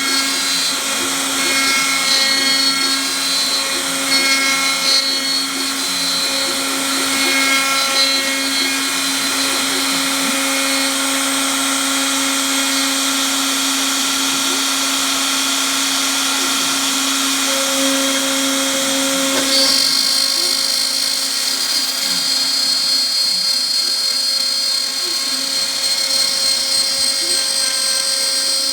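Homemade CNC router running: a steady motor whine made of several tones that shift as it works, with the pattern of tones changing noticeably about twenty seconds in.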